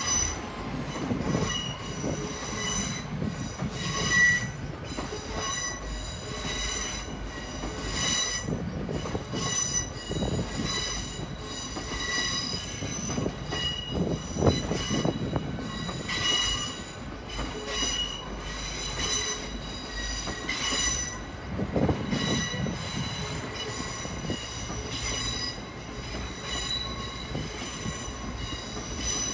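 Steel train wheels squealing in repeated, pulsing bursts as a departing train grinds round curved track and pointwork, over a low rumble from the wheels.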